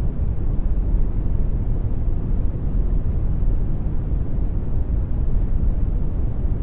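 Generated brown noise: a steady, deep rushing hiss, strongest in the bass and falling off toward the treble, unchanging throughout.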